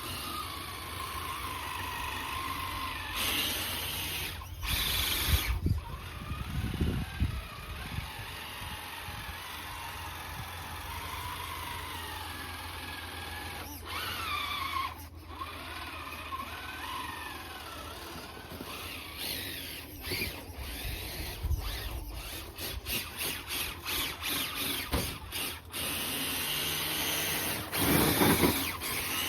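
Electric motor and gear whine of an RC rock crawler driving in snow, the pitch rising and falling with the throttle. In the later part the throttle is blipped in short rapid bursts.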